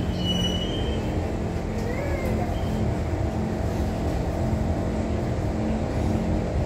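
Steady low rumble and hum inside a Kawasaki Heavy Industries C151 MRT train car standing at a station platform with its doors closed, from the car's running equipment and ventilation.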